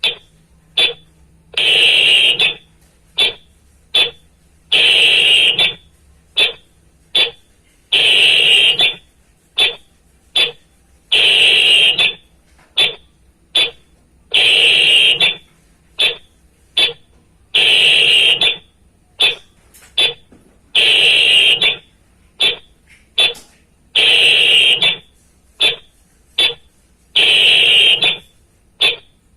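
A whistle blown as a signal: short, sharp blasts alternating with longer blasts about a second long, in a pattern that repeats roughly every three seconds.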